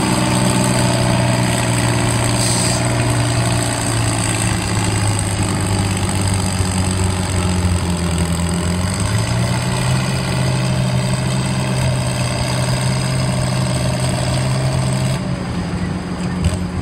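Farmall 656 tractor engine pulling a weight-transfer sled under load. It makes a steady drone whose pitch dips and climbs again about nine seconds in, then drops away about fifteen seconds in.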